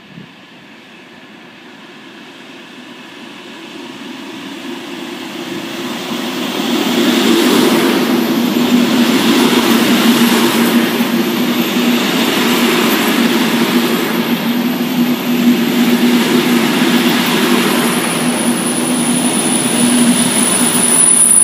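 A diesel-hauled train of Halberstädter compartment coaches rolling in alongside the platform. The droning engine of its Siemens ER 20 'Herkules' diesel locomotive and the rumble of the wheels grow louder over the first seven seconds, then hold steady.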